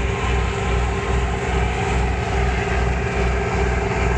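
A large ship's diesel engine running steadily: a deep throb that pulses about twice a second under a steady hum.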